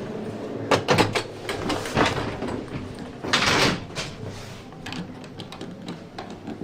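Old lift's hinged door and its hardware being handled: a series of latch clicks and knocks, then a half-second rush of noise about three and a half seconds in, and a few lighter clicks after.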